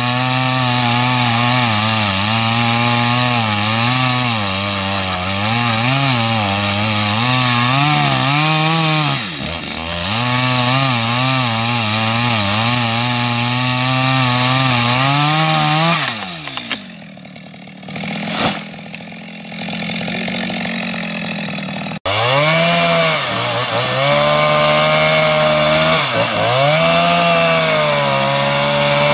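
Stihl MS 250 two-stroke chainsaw running at high revs while cutting wood, its pitch sagging and recovering under load. About two-thirds of the way through the revs fall away to a quieter idle for a few seconds, then high-revving cutting resumes abruptly.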